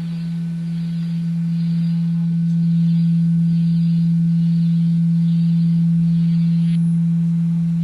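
A loud, steady, low electronic drone: a single pure tone held without a break, swelling slightly about three seconds in. A faint hiss above it cuts off about seven seconds in.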